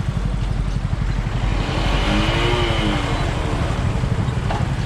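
Honda Unicorn's single-cylinder engine running steadily underway, with wind noise and the hubbub of surrounding traffic. About two seconds in, a tone that rises and falls joins it.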